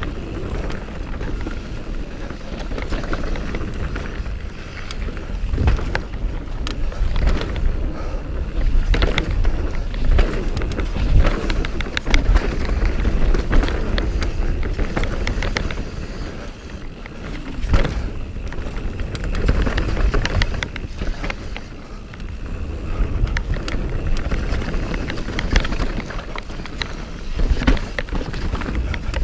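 Mountain bike riding fast down a dirt forest trail over roots: a continuous rumble of tyres on dirt and wind on the camera microphone, with frequent sharp knocks and rattles from the bike as it hits bumps.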